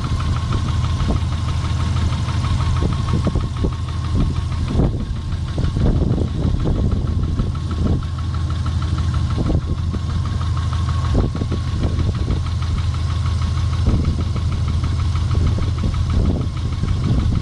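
Subaru EJ15 1.5-litre flat-four engine running at a steady idle with a knock, which the owner puts down to cylinder number four.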